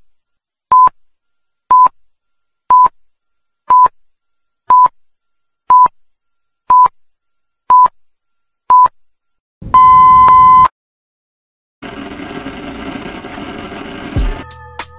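Film-leader countdown beeps: a short high beep once a second, ten in all, then one long beep lasting about a second. After a second of silence comes about three seconds of TV static hiss, ending in a low thud.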